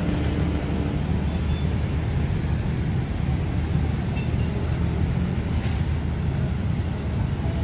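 Steady hum of motor traffic on a busy city road, an even low rumble with no single vehicle standing out.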